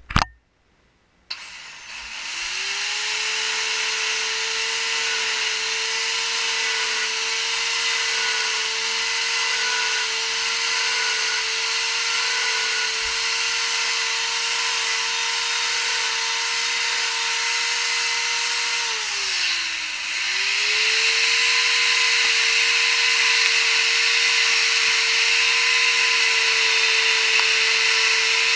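Electric wood-carving power tool switched on about a second in, spinning up to a steady high whine with a hiss over it. Past the middle its pitch sags briefly and climbs back, and it runs a little louder after that.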